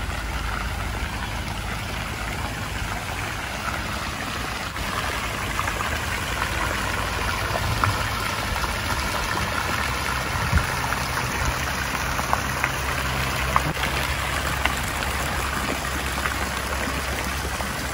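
Small fountain jets spraying into a shallow pool: a steady patter and splash of falling water, with a few sharper splashes standing out.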